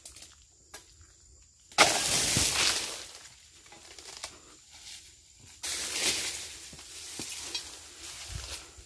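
Oil palm fronds being cut with a long-poled pruning chisel, rustling and crashing in two noisy spells: the first starts suddenly about two seconds in, the second a few seconds later and lasts longer.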